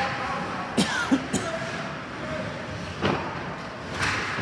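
Ice hockey play: a steady hiss of skates on the ice with sharp clacks of sticks and puck, three in quick succession about a second in and another about three seconds in.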